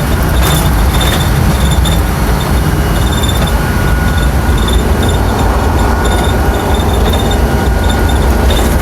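Loud, steady engine and road rumble heard from inside the cab of a Chevy P30 step van on the move, with intermittent high squeaks and rattles from the old van body.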